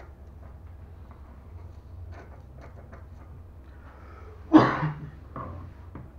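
A person clears their throat loudly once, about four and a half seconds in, followed by a shorter, quieter throat sound, over faint light ticks and a low steady hum.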